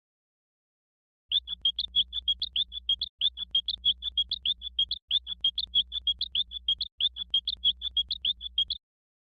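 Stock cartoon sound effect of rapid high-pitched chirping, about eight chirps a second over a low hum, starting about a second in and running in four stretches with brief breaks.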